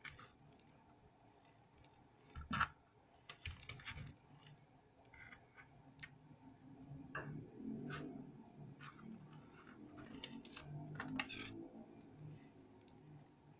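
Hands folding and rolling a spring roll pastry sheet on a plastic board: soft rustling of the pastry with scattered light taps and clicks, the sharpest about two and a half seconds in.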